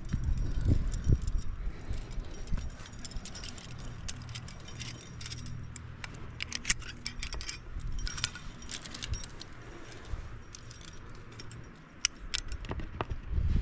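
Climbing hardware (carabiners and quickdraws on a harness) clinking and jangling in irregular metallic clicks as the climber moves, over a low rumbling noise that is strongest near the start and the end.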